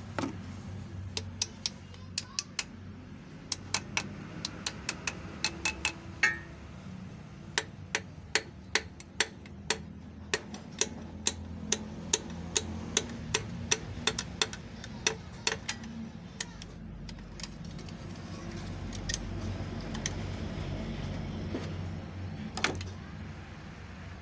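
Piston being tapped down through a ring compressor into a Suzuki F6A cylinder bore with a hammer handle: a run of sharp taps, irregular at first, then about two a second, stopping about two-thirds of the way in. One louder knock comes near the end, over a steady low hum.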